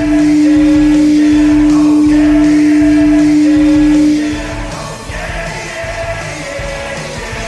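Hockey goal horn, the St. John's IceCaps horn, sounding one long steady blast that fades out after about four and a half seconds. Under it plays a goal song with group singing, which carries on after the horn stops.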